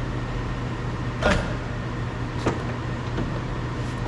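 2018 Toyota RAV4 plastic door trim panel being lifted off the door, with a few sharp knocks and clicks, the loudest with a short squeak about a second in. A steady low hum runs underneath.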